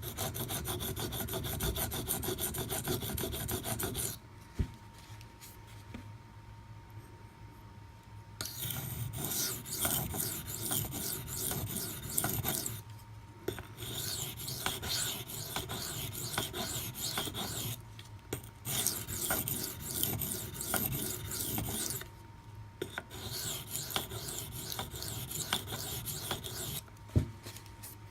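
Maxamet steel knife blade scraped rapidly back and forth on a coarse 400-grit CBN waterstone, in runs of several seconds with short pauses between. This is the coarse grinding that takes a chip out of the edge.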